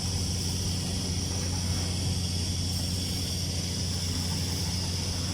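Steady, unbroken low machine hum with a faint high whine above it, from the welding equipment running during a TIG root pass on pipe.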